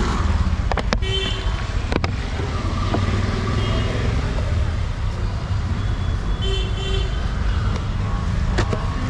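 Street traffic: a steady low rumble of passing vehicles, with short horn toots about a second in, around four seconds in, and again between six and seven seconds. A few sharp clicks stand out about a second in, around two seconds in, and near the end.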